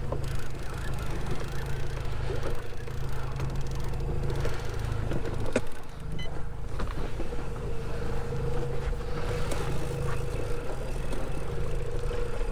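Fishing boat's motor running steadily at trolling speed, with wind and water noise. A single brief click about halfway through.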